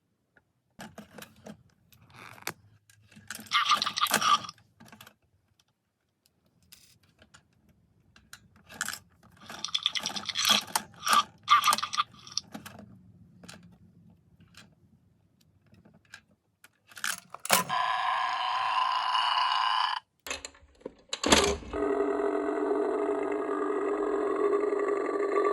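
Plastic toy parts being handled, with scattered clicks, scrapes and rattles. About two-thirds of the way in, a sharp click sets off the Burping Bobby hippo toy's electronic sound effect from its small speaker, a steady dense sound. It stops about two seconds later, and after another click a few seconds on it starts again and keeps going.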